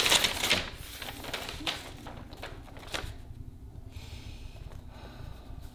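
Rustling and handling of things in an opened box, loudest at first, with a few sharp clicks over the first three seconds, then quieter paper handling as a photograph is lifted out.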